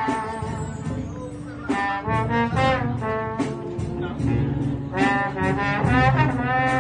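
Filipino brass band playing live, with saxophones and brass carrying the melody over sousaphone bass, in an arrangement of Manila Sound pop songs.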